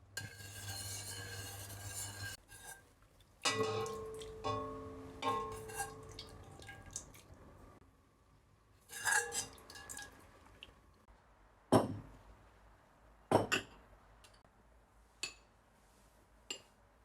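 Ceramic or glass tableware clinking: a couple of seconds of scraping or rustling, then several knocks that ring on briefly, and a few short sharp taps near the end.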